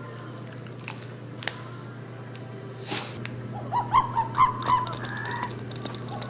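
Rubber squeak toy squeaking in a quick run of short squeals, about three a second, starting a little past halfway. Before that, a steady low hum with a few sharp clicks.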